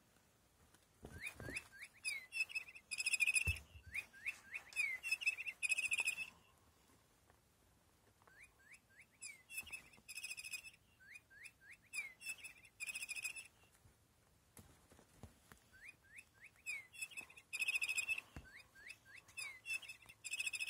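Electronic bird chirping from a small plush cat toy, set off as the cat plays with it. It comes in three near-identical bouts of about five seconds each, starting about a second in, about eight seconds in and about sixteen seconds in. Each bout is a run of quick rising chirps followed by bright trilling tweets.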